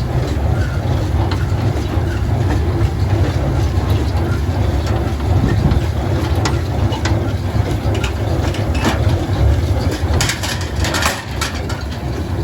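Tractor engine running steadily as it pulls a small square baler at work in hay, with the baler's clicks and knocks over the drone, grouped most thickly near the end.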